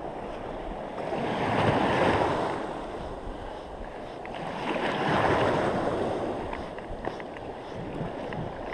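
Small sea waves washing in, in two swells that rise and fall about three seconds apart.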